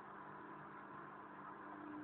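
Hoover boilwash washing machine running: a faint, steady machine hum and whir, with a new hum note coming in near the end.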